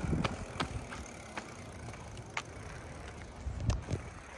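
V20 electric bike being ridden off: low rumble of the ride fading in the first second, then a quieter steady noise with scattered clicks and rattles, and a louder double knock near the end.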